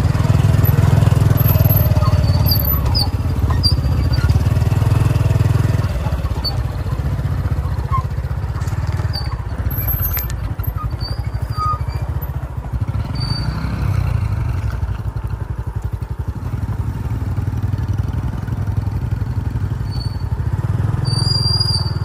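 A vehicle engine running steadily while on the move, a low drone that is louder for the first six seconds and then eases. Short high chirps come and go over it.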